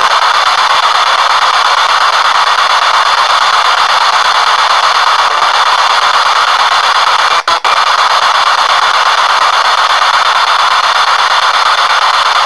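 P-SB7 spirit box sweeping through radio stations, giving loud continuous static through an external speaker. It cuts out twice in quick succession a little past halfway.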